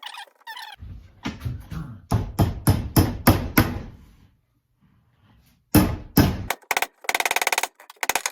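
Hammer blows driving a glued wooden dowel into a 3/8-inch hole drilled in an axe handle. A run of about eight blows comes at about three a second, then a pause. Two more heavy blows follow, then a quick rattle of rapid light taps and a last couple of hits near the end.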